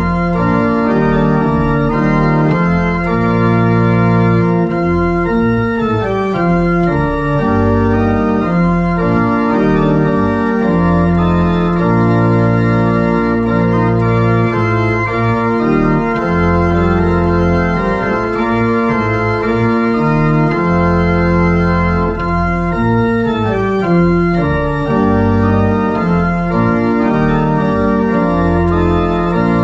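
Organ music: full held chords that change every second or two, with a steady bass line beneath.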